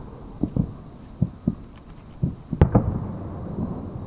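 Distant fireworks bursting: an irregular run of low, dull booms, several a second, with one sharper, louder bang a little past halfway.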